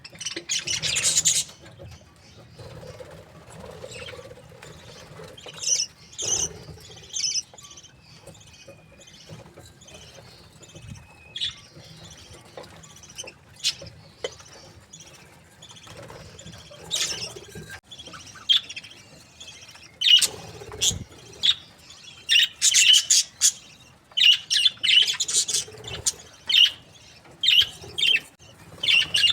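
Budgerigars chirping and chattering in many short, high calls. The calls come thicker and louder from about two-thirds of the way in.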